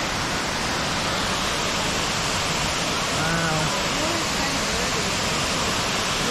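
Rutledge Falls, a waterfall pouring over stepped rock ledges into a pool, making a steady, even rushing noise.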